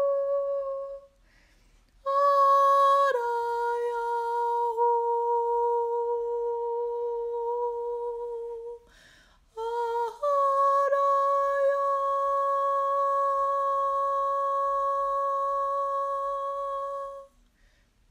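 A woman's voice toning long, steady sung notes with short pauses for breath between them. A high note steps down to a lower one held for several seconds, then returns to the high pitch for another long hold.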